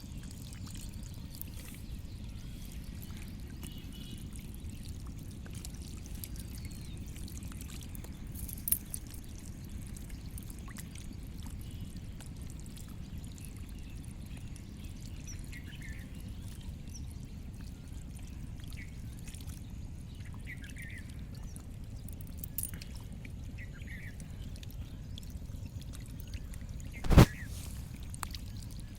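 Steady low rush of flowing water, with faint scattered chirps above it. A sharp knock stands out near the end, with a smaller click earlier.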